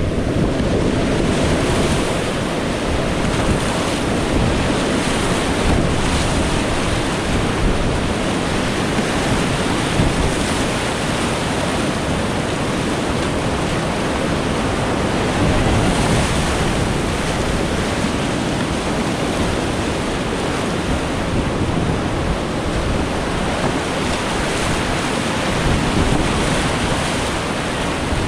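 Loud, steady rush of whitewater rapids, heard from a kayak paddling through them.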